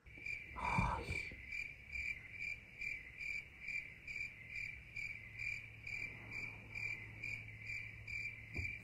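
Cricket chirping: a high, pulsing chirp repeated about two to three times a second over a faint low hum, starting and stopping abruptly like a 'crickets' sound effect dropped into the edit. A brief rustle about a second in.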